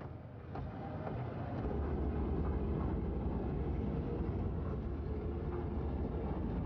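A steady low mechanical rumble, like a vehicle's engine, growing louder about a second and a half in, with a faint steady hum above it.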